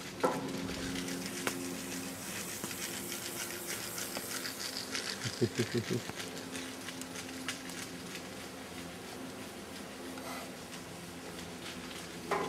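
A steady low hum under crunching footsteps on gravel railway ballast, with a brief rapid rattle about five and a half seconds in.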